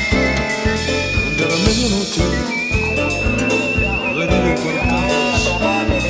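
Music with a steady drum beat, over which a high whistle-like tone slides up and holds, wavering, several times.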